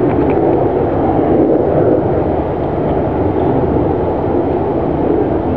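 Steady wind buffeting the microphone, a loud low rushing that flickers in strength without letting up.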